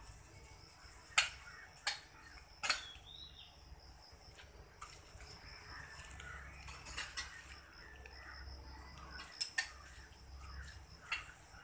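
Hanging steel exercise rings clinking and knocking as a man works his weight on them: a handful of sharp, separate metallic clicks at irregular intervals, with a pair of clinks about 7 s in and again near 9.5 s.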